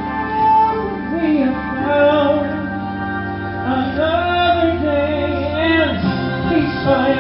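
Live band music: sustained organ-like keyboard chords under a singing voice that holds long, wavering notes.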